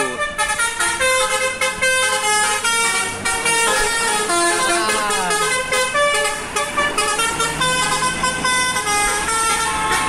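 A 'telolet basuri V3' multi-tone musical bus horn on an Indonesian intercity bus plays a fast melody of changing notes, with sliding notes about five seconds in.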